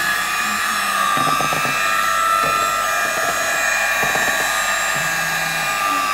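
Electric hand mixer running steadily with a constant motor whine, its twin beaters working through thick cake batter.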